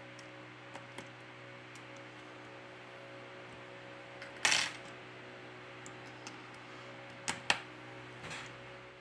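Small clicks and taps of tools and fingers on a smartphone's internal parts during reassembly: a few light ticks about a second in, a short sharp scrape or rustle about halfway, and two sharp clicks near the end as parts are pressed into place, over a steady low electrical hum.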